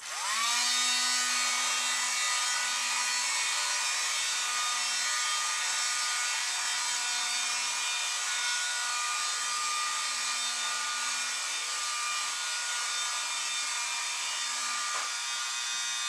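Small fan motor of a USB computer vacuum cleaner, run off four AAA batteries, switching on and spinning up within a moment to a steady whine with a rushing hiss of air.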